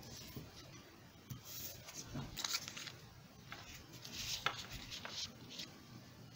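Cut-paper fraction pieces being slid and tapped into place on a wooden tabletop: soft scattered rustling and light taps, with a sharper tap about four and a half seconds in.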